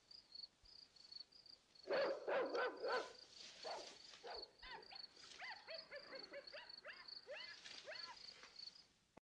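A dog barking and yelping over and over, starting about two seconds in, over a steady chirping of crickets.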